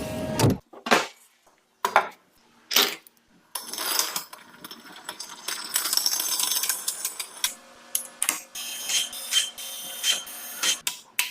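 Workshop tool noise on a part: a few short scraping strokes, then about four seconds of continuous noise, then a quick series of clicks and taps.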